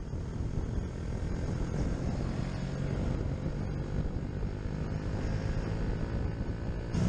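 KTM RC125's single-cylinder four-stroke engine running at a steady cruise on the move, with wind rushing over the helmet-mounted microphone.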